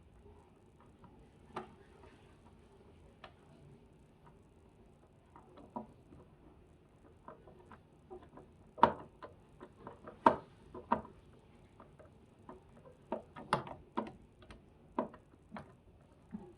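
Irregular clicks and light knocks of a caster wheel being screwed onto the plastic base of a portable air conditioner, sparse at first and quickening about halfway, the two loudest knocks about nine and ten seconds in.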